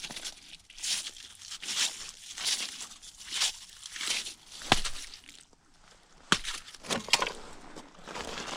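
Repeated crunching and scuffing on snow-covered ice, roughly one every half second to second, with two sharp clicks in the middle and a short lull before the second.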